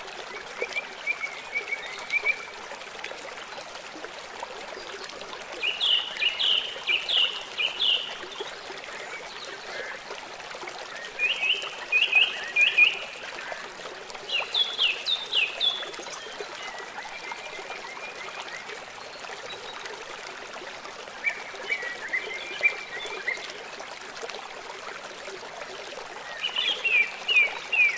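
River water running steadily. Over it, birds sing in short phrases of quick, high notes that repeat every few seconds.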